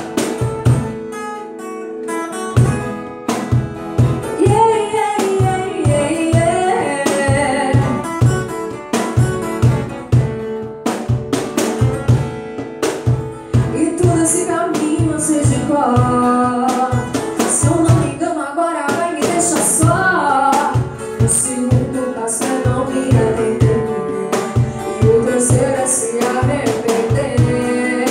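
A woman singing a Portuguese-language sertanejo song with two strummed acoustic guitars and a cajón keeping a steady beat.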